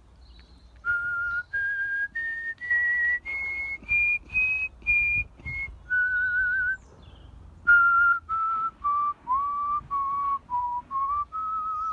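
A person whistling a melody by mouth, solo artistic whistling: a clear single tone climbing note by note, a held note with vibrato, a short pause, then a phrase stepping back down.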